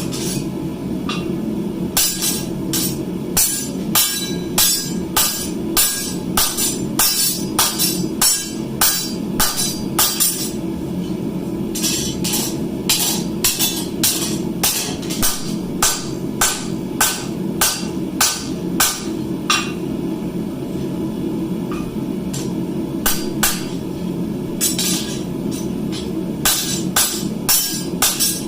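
Hand hammer striking steel on an anvil in three runs of quick, regular blows, about two or three a second, each with a short metallic ring, over a steady low hum.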